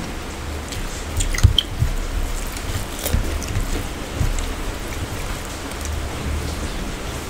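Close-up eating sounds: fingers mixing rice and curry on steel plates and mouths chewing, with wet squishes and small clicks over a steady low hum.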